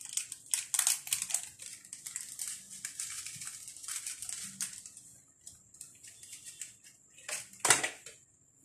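Crinkling and clicking of a small plastic seasoning sachet as powder is shaken from it into a pan, dense for the first few seconds and then sparser, with one sharp knock near the end.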